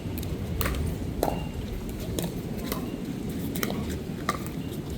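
Pickleball paddles striking the plastic ball: about ten sharp pops at an uneven pace over a low steady rumble.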